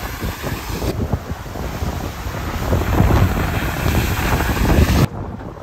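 Water splashing and rushing as Mahindra Thar SUVs are driven fast through a shallow river, with heavy wind noise on the microphone. It grows louder toward the end and cuts off abruptly about five seconds in.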